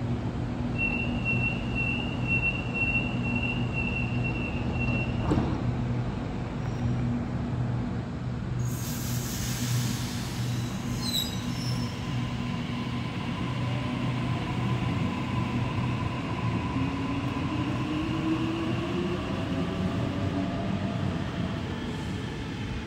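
Sydney Trains Waratah double-deck electric train at the platform: its door-closing warning beeps for about four seconds over a steady hum from the idling train. About eight seconds in comes a burst of air hiss, and from about sixteen seconds a rising whine from the traction motors as the train pulls away.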